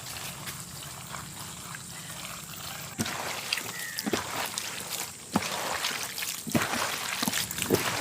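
Wet pouring and splatting as ground chilli paste is added to a batch of cut squid, with a series of sharp wet splats from about three seconds in.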